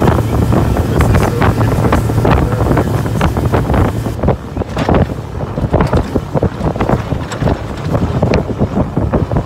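Wind buffeting the microphone aboard a moving boat, in irregular crackling gusts, over a steady low hum that fades after about four seconds.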